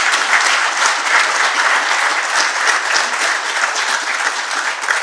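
Audience applauding: many people clapping steadily, then fading out just after the end.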